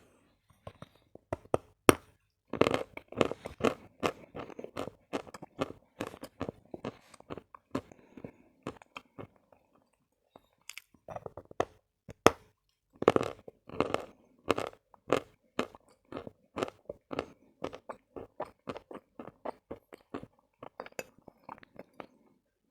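Lumps of Khrapovsky natural chalk being bitten and chewed, giving sharp dry crunches. The loudest bites come about two and a half seconds in and again around thirteen seconds in, each followed by a run of rhythmic chewing crunches.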